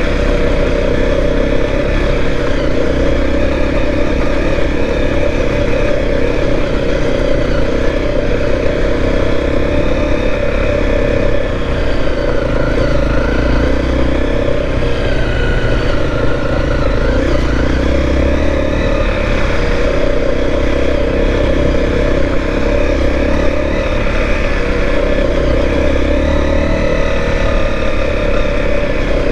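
Motorcycle engine running at steady riding speed on a gravel road, its pitch dipping and rising a few times around the middle, with wind rumbling on the microphone.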